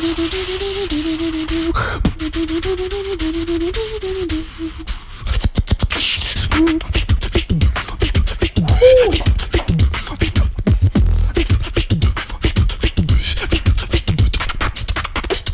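Beatboxing: a wavering hummed melody over a steady hiss for about five seconds, then, after a brief dip, a drop into a fast, dense beat of sharp clicks and hits with bass notes sliding downward.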